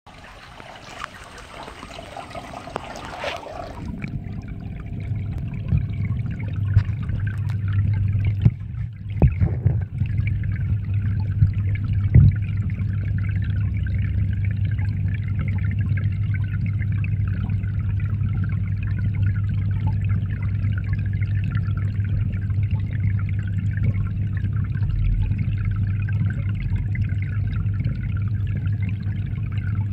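Water trickling and splashing in a garden fish pond, getting louder. About four seconds in the microphone goes under the surface and the sound turns muffled: a steady low underwater hum and water noise, with a few knocks in the next several seconds.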